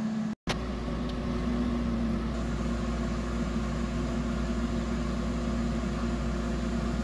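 Nuwave Brio 14Q air fryer running on its rotisserie setting: a steady hum from its convection fan and spit motor, with a low drone under a couple of steady tones.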